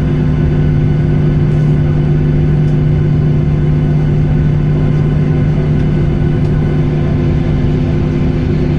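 Boeing 737-800's CFM56 jet engines running: a loud, steady drone with a low hum and rumble that holds level throughout.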